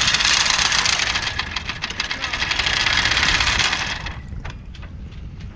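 Anchor chain running out over the bow, a loud continuous rattle that stops about four seconds in, followed by a few separate clanks as the chain settles.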